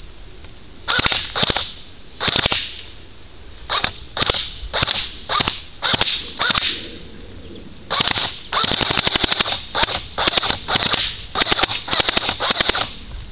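Airsoft AK-style rifle firing BBs in a string of single shots and short bursts. The shots come spaced out at first, then in a fast run of closely spaced bursts over the last few seconds.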